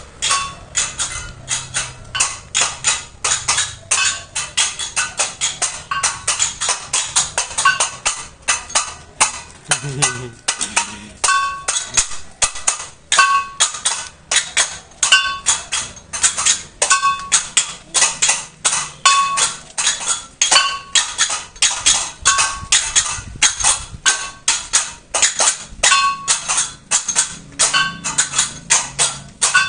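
Children playing Balinese gamelan-style percussion: small handheld gongs and cymbals struck with wooden beaters in a fast steady beat of about four strikes a second, with a short ringing gong note about every two seconds.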